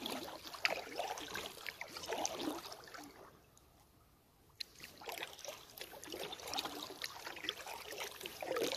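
Kayak paddle strokes in shallow water: splashing and dripping from the blades. There is a pause of about a second and a half near the middle, ending with a sharp click.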